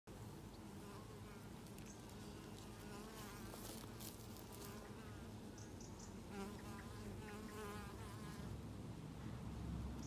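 Honeybees at the hive entrance giving a steady, low hum from a calm colony settling for the evening. Birds sing over it in warbling, trilled phrases, first in the first half and again in the second.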